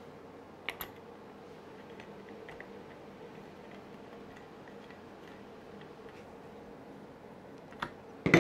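Faint clicks and taps from refitting an RC monster truck's rear wheel and its wheel nut by hand, over a steady low hum. A pair of clicks comes about a second in, and a louder clack just before the end.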